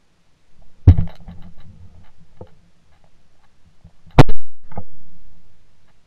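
A single .410 shotgun shot about four seconds in: a sharp, very loud crack with a long fading tail. It is preceded about a second in by a heavy knock and rustling, and followed half a second later by a lighter knock.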